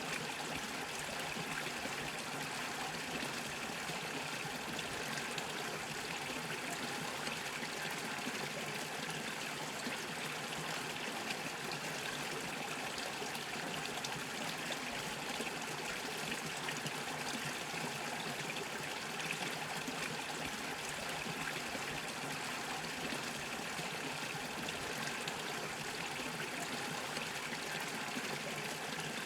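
Small brook bubbling and trickling over stones, a steady, even rush of water.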